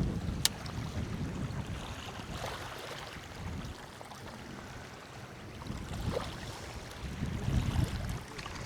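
Wind buffeting the microphone, a low rumble that gusts stronger at the start and again near the end, with one sharp click about half a second in.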